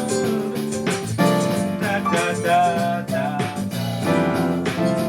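Ensemble music: a singing melody over keyboard accompaniment, the chords changing every second or so.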